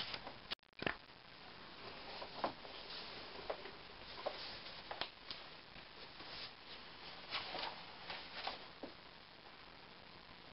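Pages of a paperback book rustling and turning as it is leafed through: scattered soft rustles and light taps over a quiet room hiss.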